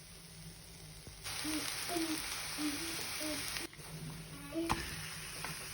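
Thin pancakes frying, the oil in the hot pan sizzling with a steady hiss that grows louder about a second in.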